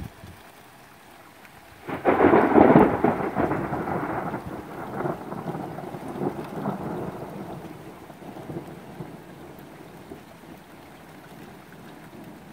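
A thunderclap about two seconds in: a sudden loud crack that rolls on as a crackling rumble and fades away over several seconds. Steady rain falls throughout.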